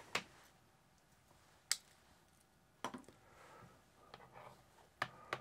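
Sharp EL-531TG scientific calculator's plastic case knocking on a desktop as it is turned over and handled: about five separate sharp clicks spread over the few seconds, quiet in between.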